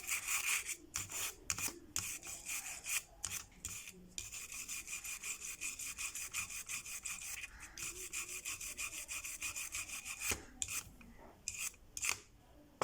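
Toothbrush bristles scrubbing a phone circuit board's charging-port pads wet with motherboard cleaner, in fast, even back-and-forth strokes. The scrubbing stops about ten and a half seconds in, with a few last strokes shortly after.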